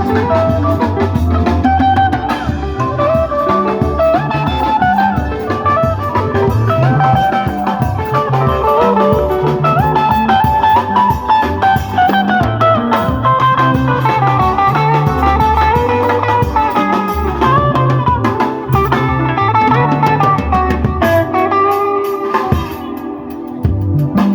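Live band playing: electric guitar melody lines over bass and drum kit, keeping a steady groove.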